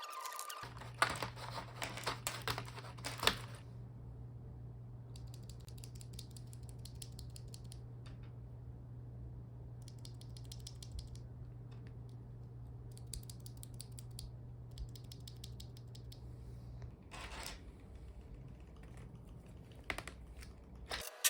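Clicking and rattling of mechanical keyboard switches and small plastic keyboard parts being worked by hand. The sound comes as sharp clicks at first, then runs of fast light ticking, over a steady low hum.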